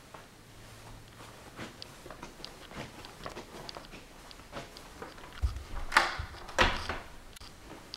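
Footsteps going up a short flight of carpeted stairs, the heaviest steps landing about two-thirds of the way in, among faint clicks and rustles of a handheld camera.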